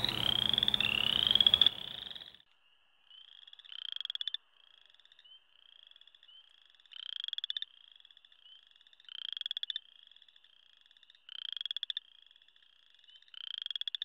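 Chorus frogs calling with rising, pulsed trills that sound like running a finger along the teeth of a comb. A dense, loud chorus stops abruptly about two seconds in. After that one nearby frog gives a trill about every two seconds, with fainter frogs trilling in between.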